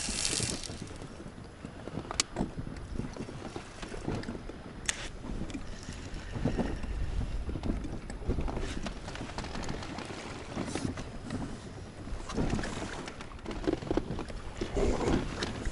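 Wind on the microphone and water lapping against a fishing boat's hull, a low uneven rumble and wash, with two sharp clicks about two and five seconds in.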